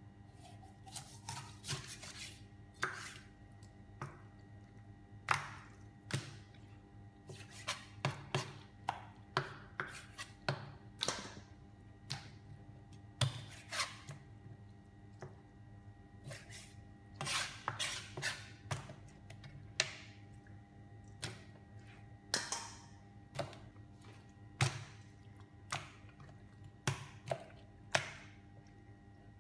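Large chef's knife chopping a whole raw chicken into pieces on a plastic cutting board: irregular sharp knocks of the blade hitting the board, about one or two a second.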